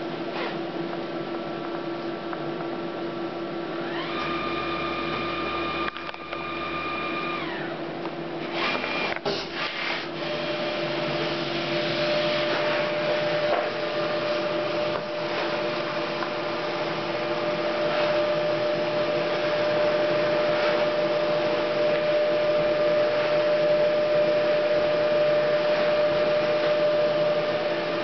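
Memjet SpeedStar3000 inkjet label printer running a print job. A steady mechanical hum carries a whine for about three seconds around four seconds in, then a few clicks. From about ten seconds it runs louder and steadier as the label stock feeds through and prints.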